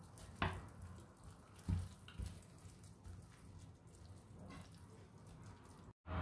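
Wooden spatula stirring stir-fried water spinach in a stainless steel frying pan, with faint sizzling and a few knocks of the spatula against the pan in the first couple of seconds.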